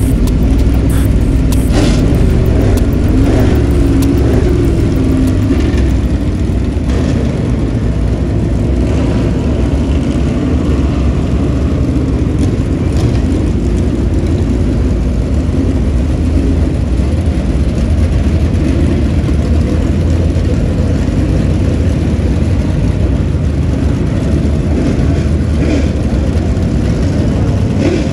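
Dirt super late model race cars' V8 engines running loud as the cars file past one after another, the pitch wavering as drivers blip the throttle.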